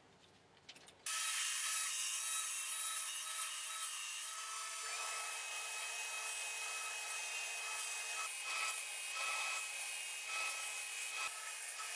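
Belt grinder running and sanding a wooden knife handle: a steady high hiss with a thin whine, starting abruptly about a second in after a faint, ticking near-quiet. The whine's pitch shifts about five seconds in as the wood is pressed to the belt.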